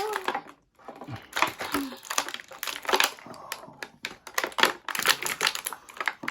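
Stiff plastic toy packaging crinkling and crackling irregularly as an action figure is pushed out of its moulded tray.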